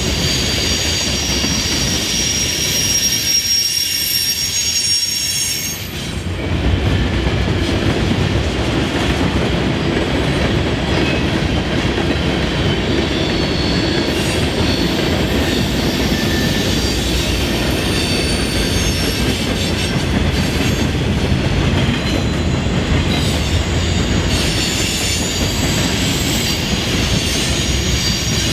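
Freight cars of a manifest train rolling over railroad diamond crossings, wheels clattering with a steady low rumble. Wheel flanges squeal in several high, held tones during the first few seconds and again near the end. The rumble grows louder about six seconds in.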